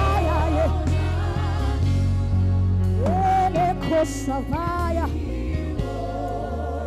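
Gospel worship music: a singer's voice with vibrato over steady sustained low chords.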